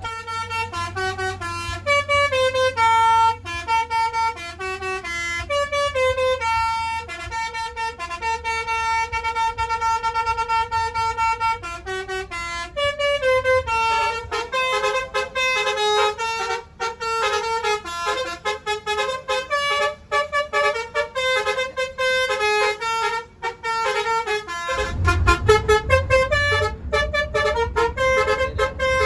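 Basuri telolet bus horn playing a fast tune of stepped, held notes, one melody after another. Under it runs a low bus-engine rumble that grows much louder about 25 seconds in.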